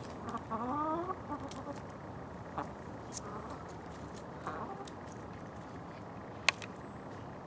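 Hen clucking: a quick run of short calls rising in pitch in the first second, then a few softer clucks around three and four and a half seconds in. A single sharp click about six and a half seconds in is the loudest sound.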